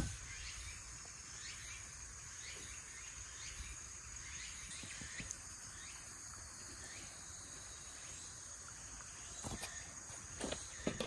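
Woodland ambience: a steady high-pitched insect buzz with short bird chirps repeating every second or so. A couple of soft knocks near the end.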